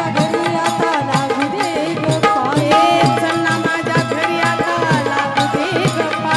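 Live Marathi folk song: a woman singing into a microphone over a fast, steady drum beat with held instrumental tones.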